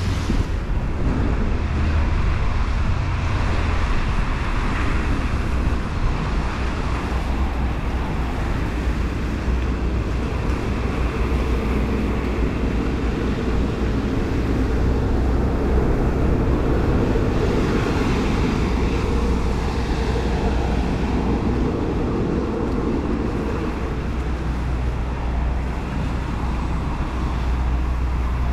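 Steady rainy-day street ambience: a constant low traffic rumble under an even hiss of rain and wet road noise, with no single distinct event standing out.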